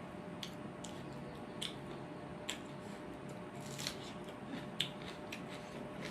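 Close-miked eating sounds: chewing and wet mouth clicks and smacks as food is eaten, irregular and short, over a faint steady hum.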